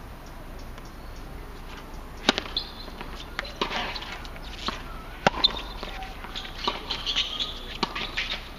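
A tennis rally on a hard court: rackets striking the ball and the ball bouncing, as sharp pops, with sneakers squeaking on the court surface in between. The sharpest hits come about two seconds in and about five seconds in.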